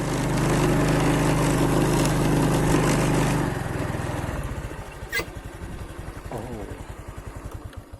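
Small engine running steadily, then its firing beat slows and fades from about three and a half seconds in. A single sharp click comes about five seconds in.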